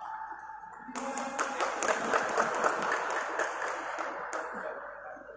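Spectators clapping for about three seconds, starting about a second in and dying away.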